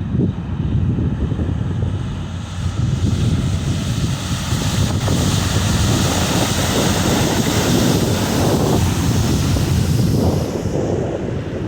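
A car driving through floodwater: a steady rush of water spray over a low road rumble, the hiss swelling through the middle and easing near the end, with wind buffeting the microphone.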